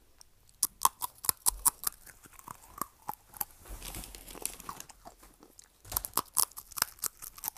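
A person chewing and crunching close to the microphone: irregular sharp crunches, thickest about a second in and again near the end.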